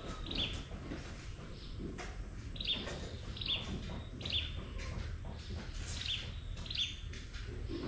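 A bird repeating a short, high chirp every second or so, over a low steady rumble.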